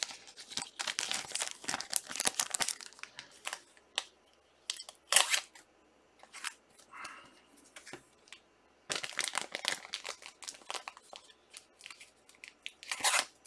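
Trading-card pack wrappers crinkling and rustling as cards are handled: a run of quick crackles and light clicks, with louder crinkles about five seconds in and near the end.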